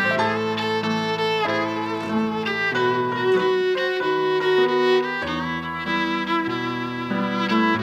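Instrumental music with a bowed violin carrying a melody of held notes over lower accompanying notes.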